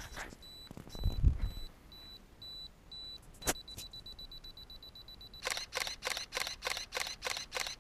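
Canon DSLR self-timer beeping at a steady pace, then faster, then the shutter firing a quick continuous burst of about eight shots near the end. A low thump about a second in.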